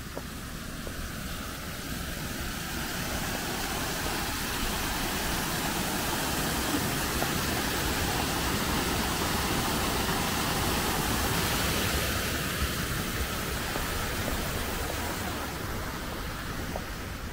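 Small stepped rock waterfall splashing down into a garden pond: a steady rush of falling water that grows louder, is loudest in the middle, and fades away near the end.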